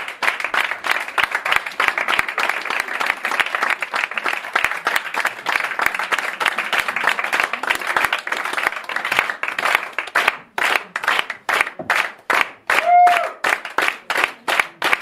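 Theatre audience applauding a curtain call. The clapping is dense at first, then settles into clapping in unison at about three claps a second for the last few seconds. A single short call rises above the clapping near the end.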